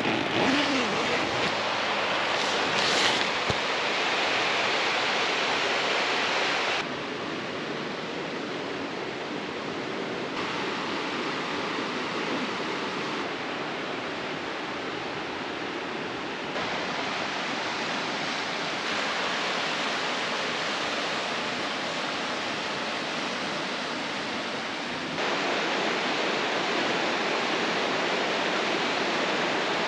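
Rushing water of a fast-flowing mountain river, a steady hiss that steps quieter and louder a few times.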